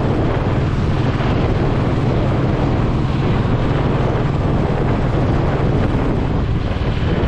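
Royal Enfield Classic 350's single-cylinder engine running steadily as the motorcycle is ridden, largely covered by heavy wind noise on the action camera's microphone.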